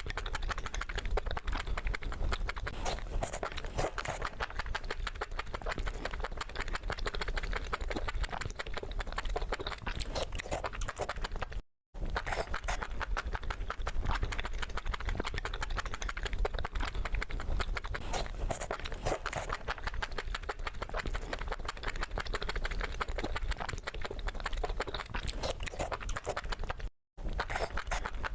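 Close-miked mukbang eating sounds: dense, rapid crunching, smacking and chewing clicks, with two brief silent cuts about 12 and 27 seconds in.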